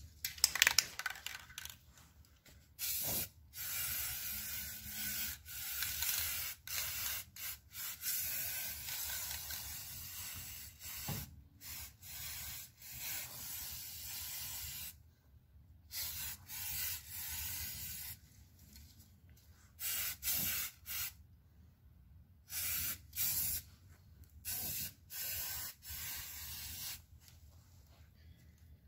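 Rust-Oleum aerosol spray paint can hissing in many short bursts, from about half a second to two seconds each, starting about three seconds in with brief pauses between them.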